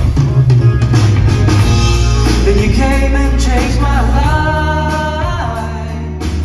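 Live performance of a pop song: male vocals singing over a band backing with heavy bass. Near the middle, a note is held for more than a second.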